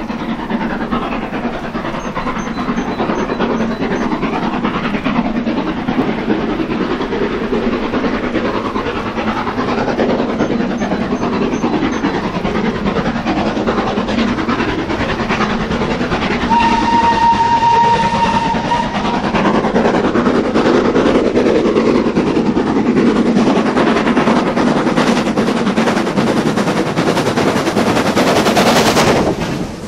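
A steam locomotive working hard as it approaches and passes close by, the running and exhaust noise growing louder. About halfway through it gives one long whistle blast lasting two to three seconds. The noise is loudest near the end as the engine passes, then drops away suddenly.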